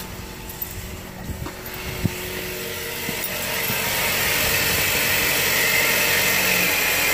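Nissan C26 Serena's engine idling, with a few light knocks and clicks in the first two seconds. From about four seconds in, the whir of the accessory drive belt and pulleys by the A/C compressor grows louder and steadier.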